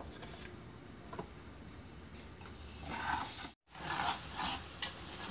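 Low steady background noise with a faint click; then, after an abrupt cut about three and a half seconds in, a spoon stirring rice frying with garlic and seasoning in a metal pan, a few short scraping strokes.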